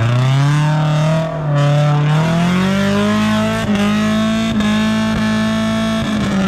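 Off-road 4x4's engine revving hard and held at high revs while the vehicle drives through a deep, muddy rut. The pitch dips briefly about a second and a half in, then climbs again and holds. A few sharp knocks come through midway.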